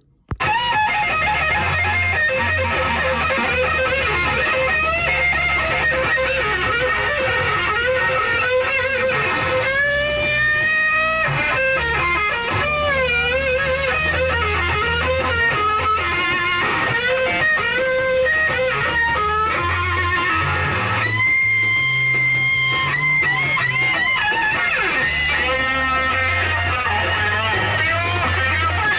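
Electric guitar playing a lead line with bent and sliding notes over a bass line, starting abruptly about half a second in.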